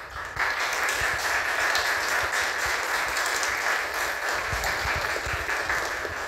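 An audience applauding: many hands clapping together, starting abruptly just after the start, holding steady, then easing off at the end.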